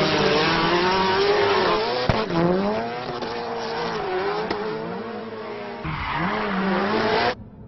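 Subaru Impreza WRX STI rally car doing smoky donuts: the engine revs up and down while the spinning tyres squeal and hiss. The sound cuts off abruptly near the end.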